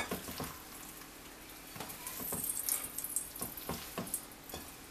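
Hands mixing a bowlful of salted raw horse mackerel: wet fish slithering and rubbing against each other and the bowl, with scattered light knocks.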